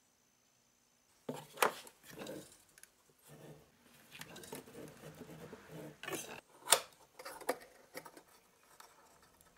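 After about a second of near silence, sharp clicks and knocks with light scraping and rubbing between them as a wooden jig is set on a miter saw's table and a metal hold-down clamp is fitted and tightened against it. The loudest click comes about two-thirds of the way in.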